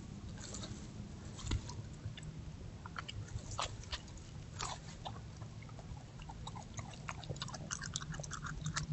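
Coyote chewing and crunching on deer bones and guts close to the microphone: irregular sharp cracks and snaps, coming thicker near the end, over a steady low hum.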